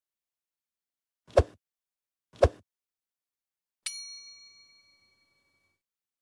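Subscribe-button sound effects: two short mouse clicks about a second apart, then a bright bell ding that rings on and fades over about a second and a half.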